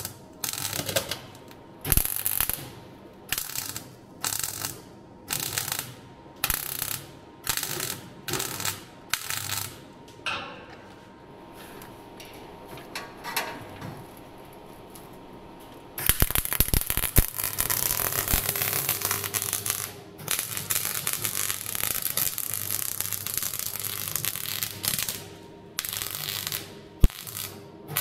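MIG welder arc crackling on steel bracing: about a dozen short stitch welds, roughly one a second, then a pause of several seconds, then a longer continuous bead of about nine seconds, and short stitches again near the end.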